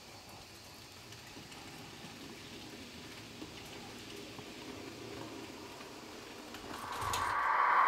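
Märklin model trains running on the layout: a faint, even running noise that swells near the end into a much louder, steady rushing sound.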